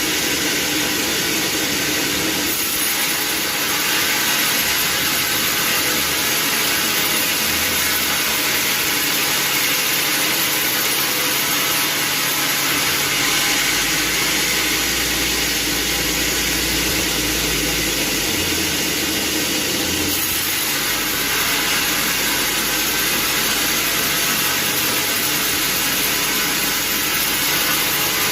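Sawmill machinery running steadily: a loud, even mechanical noise with no breaks.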